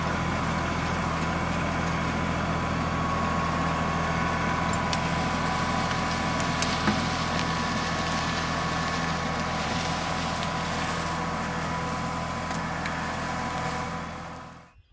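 LS XG3140 compact diesel tractor running steadily under load as it drags a log on log tongs, with a few brief clicks along the way. The sound fades out near the end.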